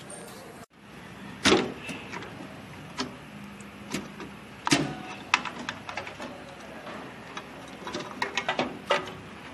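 Hands handling power-supply cables and plastic connectors inside a desktop PC's steel case: scattered sharp clicks and knocks, with a quick run of clicks near the end.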